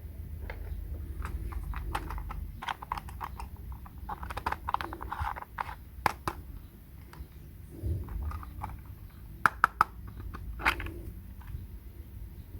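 Scattered clicks and taps of small objects being handled, with short rustling patches, over a low steady hum.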